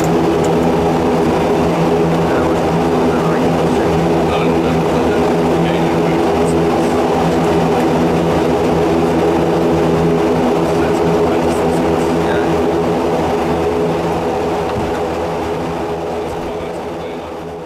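Light aircraft's engine heard from inside the cockpit while taxiing after landing: a steady hum with an even set of tones over a rushing noise, fading out near the end.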